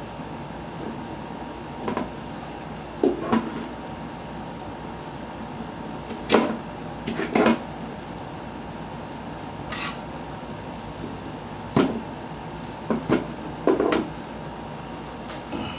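Scattered knocks and clicks of a stand fan's metal pole and parts being handled while the telescoping pole is pulled out and adjusted, about ten separate knocks spread irregularly, a few in quick pairs.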